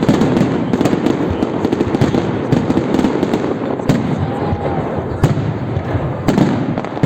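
Fireworks salute going off: a dense, continuous crackle and rumble of bursts, with sharper single bangs standing out every second or so.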